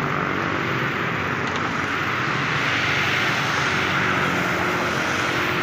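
Steady traffic noise from a busy multi-lane road, with cars and motorcycles passing below.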